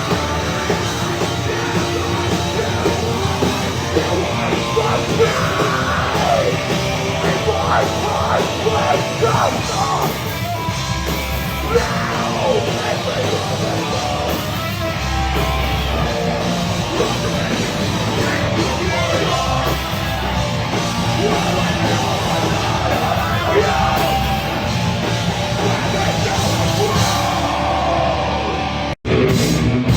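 Loud heavy rock music with yelled vocals, punk- and metal-like. The sound drops out for an instant near the end.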